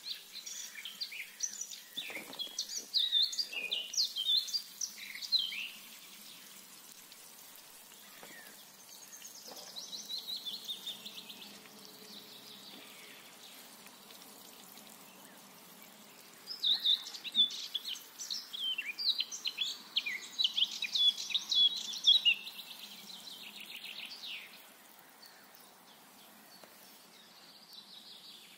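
Songbirds singing in several bursts of rapid high chirps and trills, over a faint steady hiss of meat sizzling as it deep-fries in oil in a cauldron.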